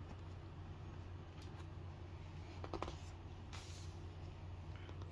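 A page of a hardcover picture book being turned by hand: a couple of light clicks, then a soft paper rustle about three and a half seconds in, over a faint, steady low hum.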